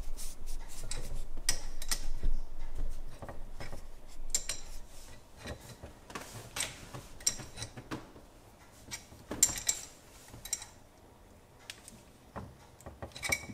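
Irregular metallic clicks and clinks of a wrench working a threaded water-line fitting as it is tightened, busiest in the first half with another short flurry about two-thirds through.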